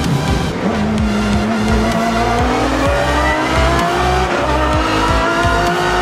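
Race-car engine accelerating hard, its pitch climbing and then dropping back at each of several gear changes, over background music.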